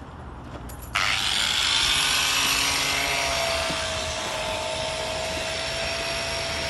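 A motor starts up suddenly about a second in and runs on steadily, a noisy rush with a high whine that sinks slightly in pitch.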